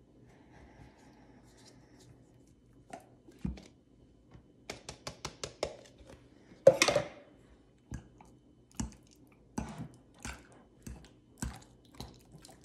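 Plastic ricotta tub tapped and worked upside down over a glass bowl, a quick run of taps, with one louder knock about seven seconds in. After that a spoon knocks and scrapes against the glass bowl about every half second as the ricotta is broken up.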